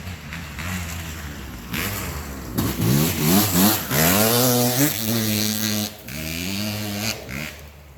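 Kawasaki 250 motocross bike engine revving up through the gears, pitch climbing and dropping back several times, loudest in the middle as it pulls hard, then holding steady before climbing again near the end.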